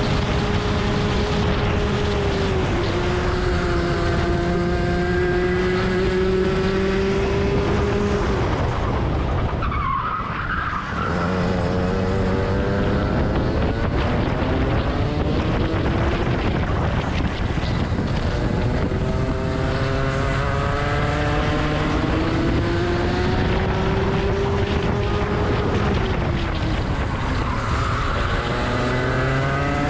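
Rotax 125cc two-stroke kart engine at racing speed, heard from on board. Its pitch holds high, drops sharply about a third of the way in as the throttle is lifted for a corner, then climbs steadily again. It falls once more near the end and starts rising again.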